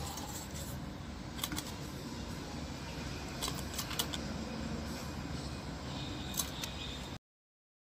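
A few light clicks and clinks of handling noise over a steady low hum and hiss. The sound cuts off abruptly about seven seconds in.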